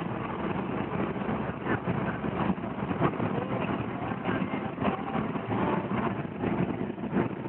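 Car driving on the road, heard from inside the cabin: steady engine and tyre noise.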